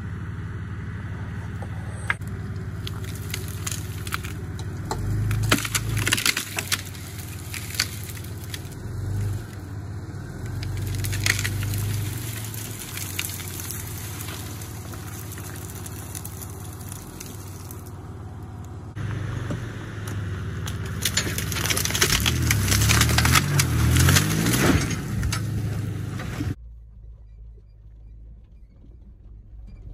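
Jeep Cherokee XJ engine pulling and revving as it drags a fallen tree on a tow strap, with branches cracking, snapping and scraping over the gravel. The sound drops off suddenly near the end.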